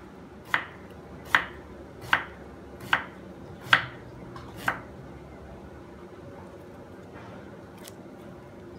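Knife chopping through a banana blossom onto a wooden cutting board: six sharp chops at an even pace, a little under a second apart.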